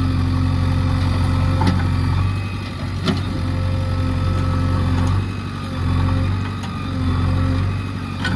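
Diesel engine of a JCB backhoe loader running steadily, its low note dipping briefly a few times, with a few sharp knocks over it.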